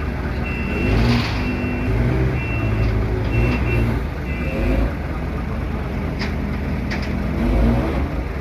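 An 18-inch rubber two-roll mill (hot mill) running: a steady low machine hum with high thin tones coming and going over the first few seconds.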